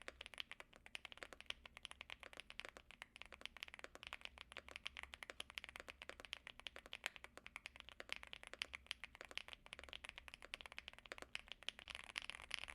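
Typing on a mechanical keyboard with pre-lubed Gateron EF Grayish tactile switches: a fast, unbroken run of keystrokes clicking many times a second.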